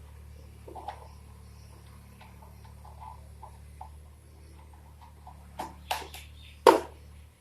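Low steady hum under scattered light clicks and taps, with sharper knocks near the end, the loudest about 6.7 s in. The hum cuts off just before the end.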